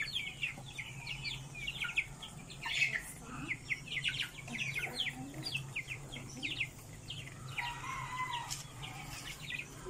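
A flock of chickens calling while crowding to be hand-fed: a steady stream of rapid, high, falling peeps with a few lower clucks, over a steady low hum.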